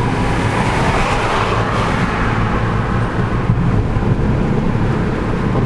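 Steady engine and road noise of a car driving, heard from inside the cabin as a continuous low rumble.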